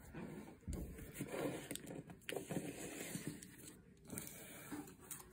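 Trading cards in hard plastic holders being handled and slid across a tabletop: soft scraping with a few light clicks, and a dull knock a little under a second in.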